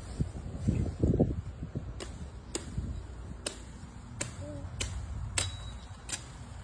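Seven sharp, crisp knocks at a steady pace, about one every two-thirds of a second: a kukri blade chopping at woody branches.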